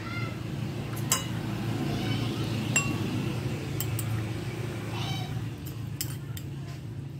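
Light clinks against a glass mixing bowl as ingredients are added by hand, a handful of sharp ticks spread through, over a steady low rumble. A few faint wavering cries sound in the background near the start, about two seconds in and about five seconds in.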